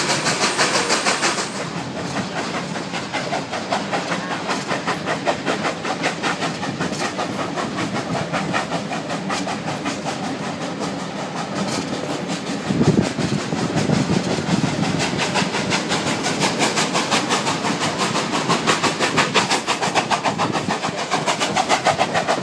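Durango & Silverton narrow-gauge steam train heard from aboard a car on a climbing grade: a steady, fast, even clatter of the train running. A louder surge comes about 13 seconds in.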